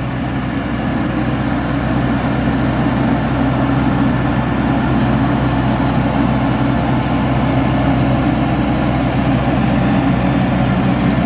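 Heavy vehicle engine running steadily at close range: a truck hauling a Crown Sumo combine harvester as it drives up and comes in close.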